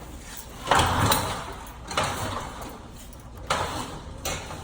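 Thick insulated electrical conductor being pushed down and worked into place, scraping and rubbing in three bursts, with a short knock near the end.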